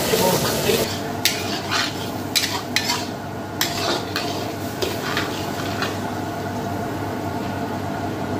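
Chopped onions frying in oil in a large iron kadai, stirred with a metal ladle that scrapes and knocks against the pan over the first few seconds, under a steady sizzle.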